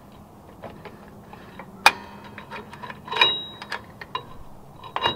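Small metal clicks and clinks of vise grips and a drum brake spring against the brake shoes and hardware, with one sharp click about two seconds in and a ringing metallic clink about a second later.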